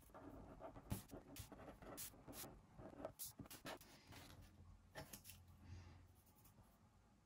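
Faint scratching of pen and pencil strokes on paper, broken by many light clicks and taps on the desk.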